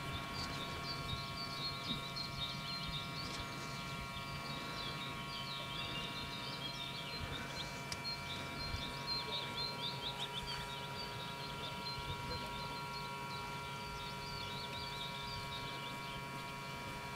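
Small birds chirping and singing from the trees in quick, high chirps, busiest around the middle, over a steady, faint hum of several even tones.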